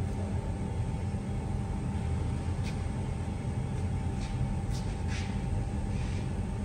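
Steady low machinery hum with a thin steady whine above it, and a few short light rattles in the second half as a wheeled wire rack of dough baskets is pulled out of a proofer cabinet.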